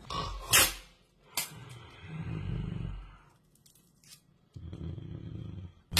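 Two sharp knocks near the start, the first the loudest, then a person snoring loudly in rough, rattling snores about a second and a half long, two of them.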